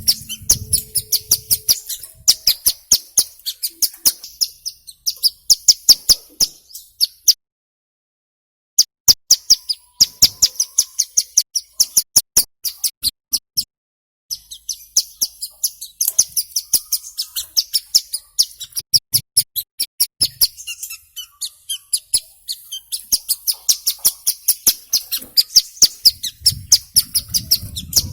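Ciblek gunung prinia calling in a fast, even run of sharp, high notes, about four to five a second, broken twice by short pauses.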